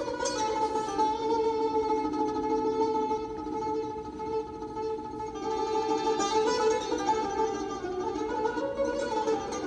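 Persian tar played solo: plucked notes on the long-necked lute, mostly held tones that change pitch a few times.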